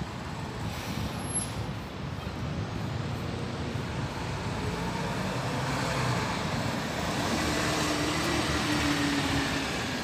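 Mercedes-Benz Citaro G C2 articulated city bus driving past close by: engine and tyre noise growing louder, loudest in the second half as the bus goes by, then it moves away.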